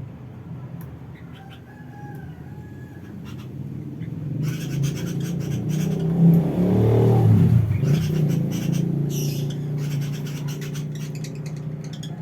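A rooster crows about halfway through, over a steady low hum that swells and then fades, with scattered faint high chirps.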